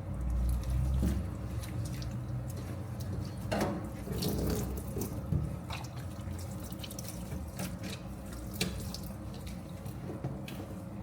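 Water running from a tap into a sink, splashing, with a few scattered knocks.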